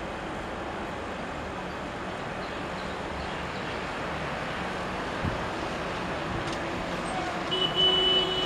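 Delhi Metro train running along an elevated track over steady road-traffic noise. About seven and a half seconds in, a horn sounds briefly on a few steady pitches.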